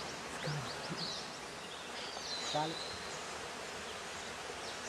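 Forest ambience: a steady insect buzz with several short, faint bird chirps and a brief high trill a little past the middle. Two soft, short voice sounds come through under it.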